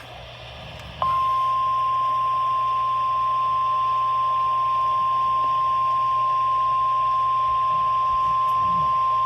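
NOAA Weather Radio 1050 Hz warning alert tone: one steady, loud, high tone that comes in about a second in, over faint radio hiss. It signals that a warning broadcast, here a severe thunderstorm warning, is about to follow.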